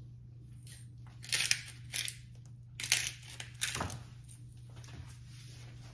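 Pepper grinder grinding peppercorns: several short bursts of crunching as its top is twisted.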